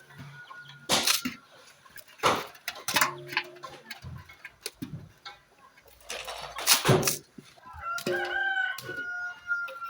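A rooster crowing near the end, one long held call. Before it come a few sharp knocks and rustles, with short chicken clucks.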